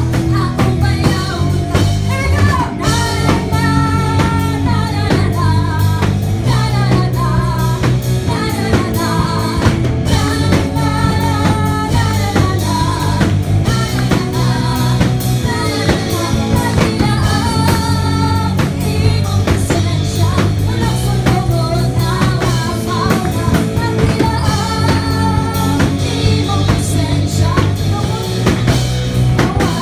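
A woman singing a worship song into a microphone over instrumental accompaniment, amplified through the church's sound system.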